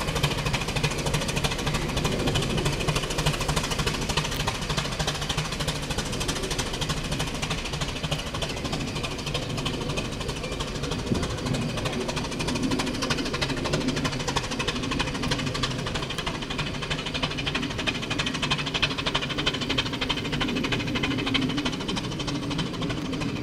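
Steam rack locomotive No. 15 of the Brienz Rothorn Bahn working uphill while pushing its coaches: a fast, steady run of exhaust beats with the knocking of its cog drive and running gear.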